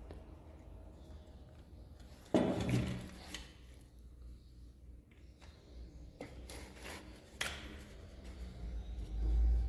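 Handling noises from the bench: a knock about two seconds in, then several small clicks and taps as hands fit rubber bands onto a homemade wooden slingshot rifle, with a low rumble near the end.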